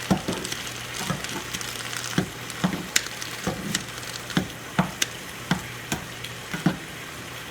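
Vegetables sizzling as they sauté in a frying pan, with a hand-held salad chopper repeatedly knocking against the pan as it chops them, roughly two strikes a second.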